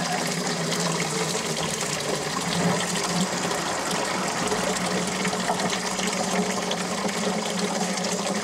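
Flush water draining steadily from the cooling system of a 2002 Saturn SL2, running from under the engine and splashing into a plastic bucket and a jar, during the rinse stage of a coolant flush.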